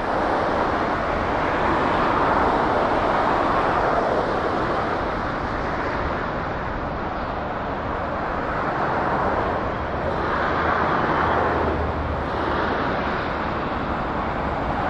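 Cessna Citation Longitude's twin turbofan jet engines: a steady rushing roar that swells and eases a couple of times.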